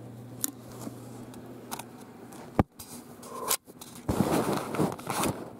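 Handling noise from rummaging through a drawer of clothes: a few scattered clicks and taps, a sharp knock about two and a half seconds in, then a loud stretch of fabric rustling and scraping a little after four seconds.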